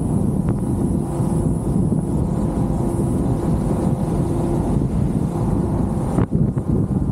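Wind buffeting the microphone in an open-top Jeep on the move, over a steady low rumble of road and engine noise with a faint steady whine. A short sharp click about six seconds in.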